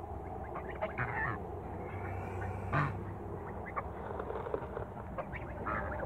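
A flock of young African geese calling with short, repeated calls while feeding. The loudest call comes just before three seconds in.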